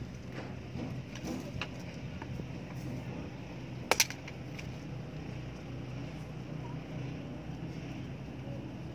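Steady low background hum with a sharp double click about four seconds in and a few faint ticks.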